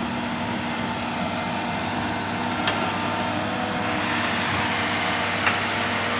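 Komatsu PC200 hydraulic excavator's diesel engine running steadily, with two brief sharp clicks, one midway through and one near the end.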